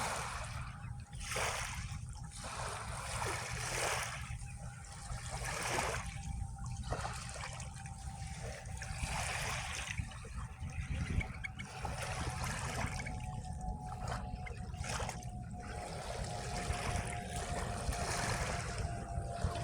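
Small sea waves lapping and splashing at the water's edge, a new wash every second or two, over a steady low rumble.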